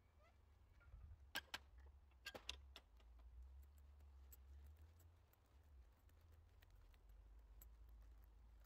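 Near silence over a low rumble, broken by a few faint sharp clicks in two small clusters about one and a half and two and a half seconds in, from footsteps on a leaf-littered woodland path.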